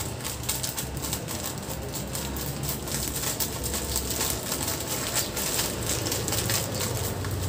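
Thin plastic fruiting bag crinkling and rustling in the hand as grain spawn is spooned into it with a metal spoon, a run of small crackles and clicks over a steady low hum.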